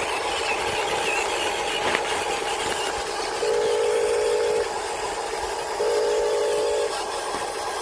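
Electric motors of radio-controlled Huina toy construction vehicles, whining in two spurts of about a second each over a steady hiss.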